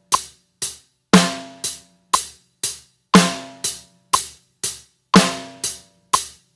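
Drum kit beat at 60 beats per minute: even eighth-note hi-hat strokes, two a second, with the snare drum cracking on beats 2 and 4 every two seconds, and a metronome clicking on each beat.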